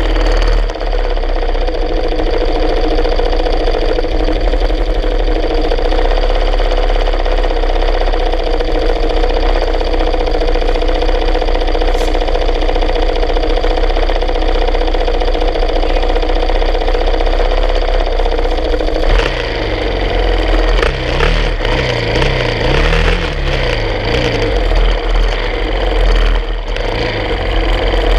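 Motorcycle engine idling steadily close up. From about two-thirds of the way in it is blipped, rising and falling in pitch as the bike starts to move off.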